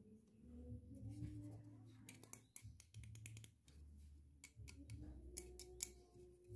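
Faint clicks and taps of fingers and nails handling small plastic toy dolls, coming thickly from about two seconds in, over a low rumble.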